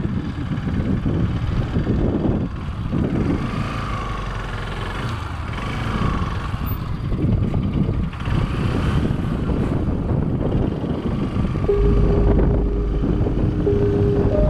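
Bajaj Pulsar 200 motorcycle being ridden, its engine running with some rise and fall in revs. Steady held tones come in near the end.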